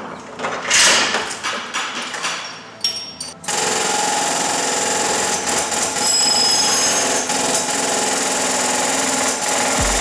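A few seconds of irregular handling and knocking noises, then a shop power tool starts abruptly about three and a half seconds in and runs steadily with a dense, rattling buzz.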